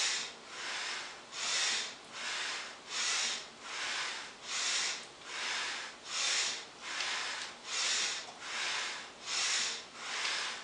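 Rhythmic breathing during repeated deep squats: a breath in through the nose on the way down and out on the way up, a squat about every 1.6 seconds, the breaths alternating louder and softer.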